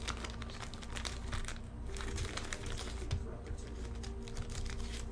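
Thin plastic crinkling as trading cards are handled and sleeved: a run of small crackles and ticks, in bursts through the first three seconds or so.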